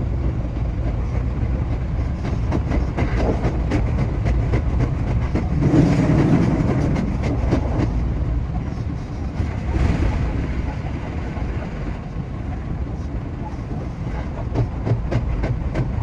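JR West 227 series electric train running along the line, a steady rumble with a fast run of clicks from the wheels over the rail. A louder rushing swell rises about six seconds in and a shorter one near ten seconds.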